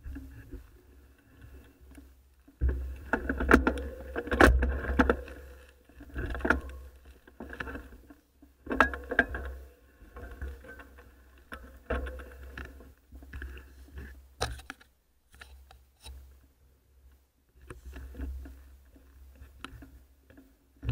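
Mountain bike ridden over a rough forest trail: irregular clatter and sharp clicks from the bike over bumps, in uneven surges, over a low rumble.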